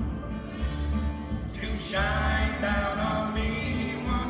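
A small acoustic string band playing a slow country song on guitar and banjo, with singing.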